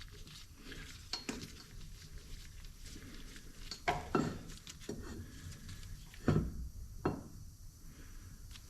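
Irregular metal clanks and clinks as clamps and small metal pieces are handled while a cylinder head is clamped into a machining fixture. There are about half a dozen separate knocks, the loudest around the middle and near the end.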